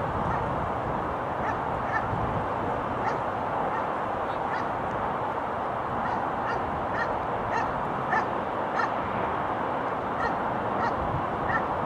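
A distant steam locomotive hauling a train, heard as a steady rushing noise, with repeated short bird calls scattered over it throughout.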